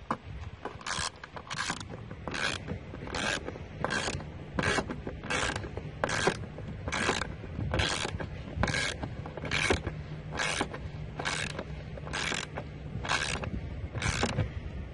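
Ratchet wrench clicking as a bolt on the air filter housing cover is tightened: a steady series of short ratcheting strokes, a little over one a second, stopping shortly before the end.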